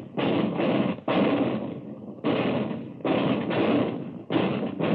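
Skysweeper 75 mm anti-aircraft cannon firing in rapid succession: heavy shots about one a second, some in quick pairs, each trailing off in a rumble.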